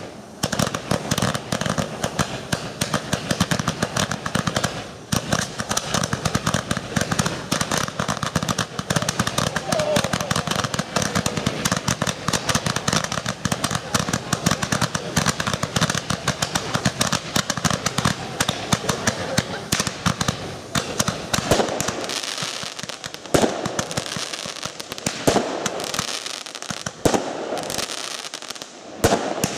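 Professional fireworks display: a dense, continuous barrage of crackling and bangs from ground fountains, rising comets and aerial shells. Over the last several seconds it breaks up into separate loud bursts.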